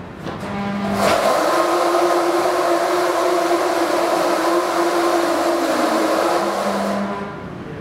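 Electric drive motors of a tracked stair-climbing wheelchair whining steadily as it climbs a flight of stairs. The whine drops out at the start, comes back about a second in, and dies away near the end.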